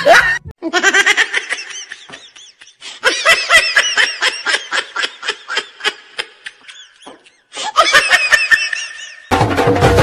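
Rapid, high-pitched laughter in quick repeated bursts. It cuts off to dead silence twice and returns, and music comes in near the end.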